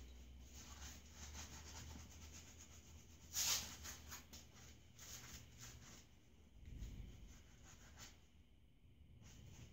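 Sponge brush dabbing and dragging wood stain over plastic sheeting stretched on a skeleton: a faint run of short brushing strokes, with one sharper, louder scrape about a third of the way in.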